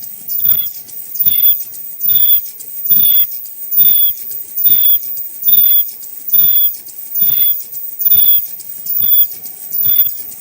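High-speed 2D bird-beak mask-making machine running in a steady production cycle, a little over one stroke a second, each stroke a low thump with a short high-pitched tone.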